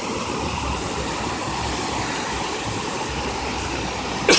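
Creek water rushing steadily over a flooded low-water concrete bridge and spilling off its edge. Near the end comes a brief loud burst of sound.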